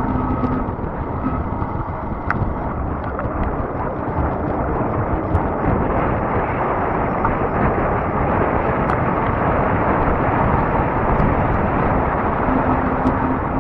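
Wind rushing over the microphone on a moving fat-tire e-bike, a dense steady roar with a few faint ticks. A brief steady hum sounds in the first half-second and again near the end.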